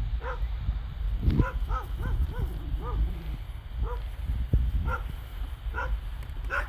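Short pitched animal calls, about a dozen of them, each a brief rise and fall, coming irregularly over a low steady rumble.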